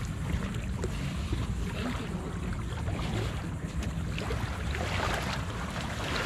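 Wind buffeting the microphone over lapping shallow water, a steady low rumble with a fainter hiss above it.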